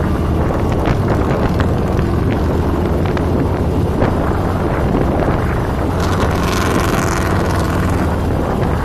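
Motorcycle engine running steadily while cruising, with wind buffeting the microphone; the hiss swells briefly about six seconds in.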